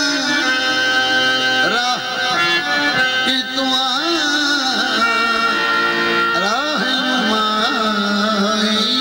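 Qawwali: a harmonium holds steady chords while a male lead singer comes in about two seconds in with gliding, ornamented vocal lines.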